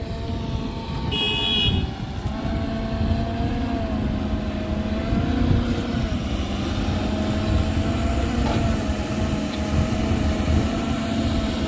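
Heavy diesel engine of mining machinery running steadily with a low rumble, its pitch wavering slightly. A short high beep sounds about a second in.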